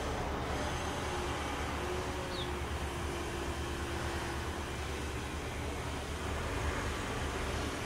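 Bombardier CL-415 water bomber's two turboprop engines droning steadily as it flies low, climbing out after scooping water.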